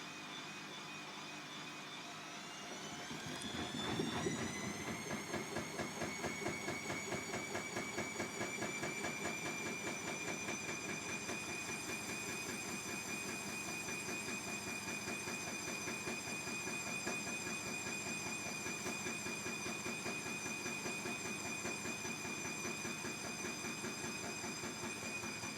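Bosch Classixx 6 Vario Perfect washing machine spinning up: the motor's whine rises in pitch about three seconds in, then holds a steady high whine with a fast, even pulsing from the drum. The load is unbalanced, and the machine spins anyway after its balance sensor gives up.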